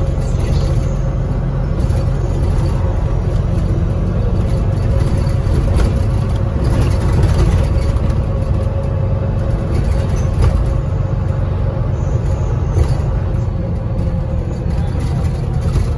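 Volvo B9TL double-decker bus heard from inside the passenger saloon while driving: a steady low engine and road rumble with a steady whine running over it, and a few knocks and rattles from the interior fittings.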